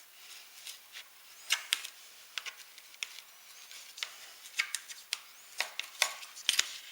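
Handling noise of hands working with the board parts: a dozen or more small, irregular clicks and taps over a faint hiss.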